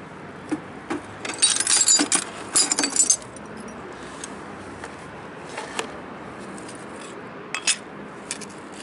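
Shards of broken sheet glass clinking and jangling against each other, in a dense burst of bright clinks from about one and a half to three seconds in, followed by a few single clicks later on.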